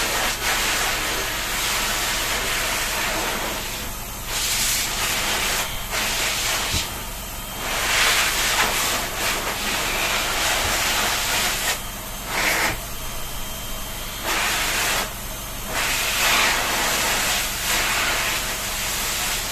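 Water spraying with a steady hiss, cutting out briefly several times as the spray starts and stops, over a steady low hum.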